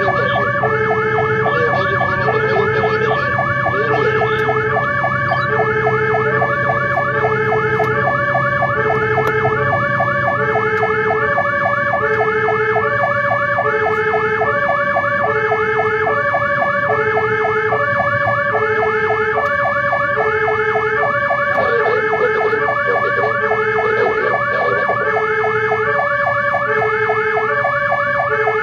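Fire engine sirens sounding continuously. A two-tone hi-lo siren alternates about once a second, a fast warbling siren tone runs over it, and the truck's engine hums beneath.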